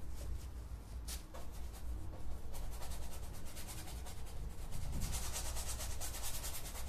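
Paintbrush scrubbing paint onto a stretched canvas in quick back-and-forth strokes, growing busier and more continuous from about two and a half seconds in.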